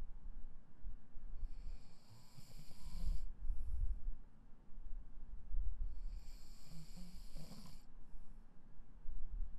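A person snoring in sleep: two slow breaths, each a low rumble with a hissing rush of air, about four and a half seconds apart.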